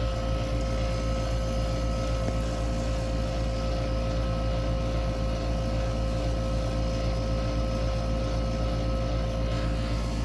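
Air conditioner running steadily, with a deep hum under a constant whine.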